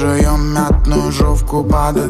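Pop song with a hip-hop beat: a sung vocal over deep bass and drums.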